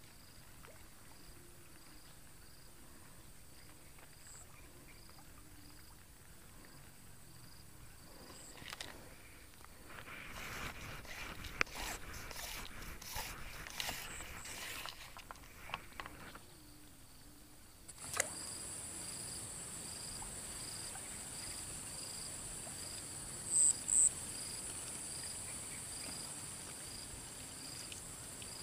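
Faint insect chorus with a steady high chirp repeating about twice a second, and a high hiss in the second half. In the middle there is rustling and scraping from handling the fishing rod and line, and near the end there are two short high chirps.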